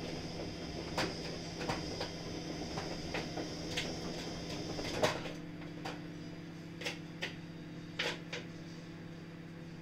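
A steady low hum with scattered light clicks and knocks, the loudest about five seconds in, and a faint rustling handling noise during the first half.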